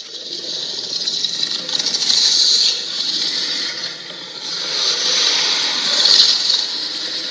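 Homemade monster sound effect for a Godzilla-style creature: a harsh, noisy hiss that swells to a peak about two seconds in and again, louder, about six seconds in.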